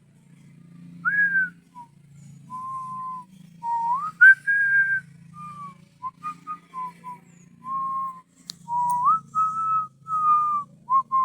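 A person whistling a tune: a string of clear single notes, some held and some sliding up in pitch, with a faint low hum underneath.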